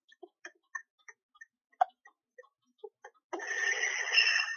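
Recorded vocal noises from a person in a deliverance session: a run of faint, irregular clicking sounds captioned as a subtle laugh, then, about three seconds in, a loud, long, rasping breathy sound. The ministry presents these noises as a demon manifesting.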